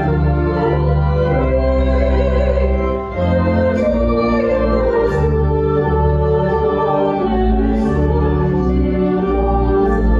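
Church organ playing a hymn in long, held chords over a deep bass, with a few voices singing along.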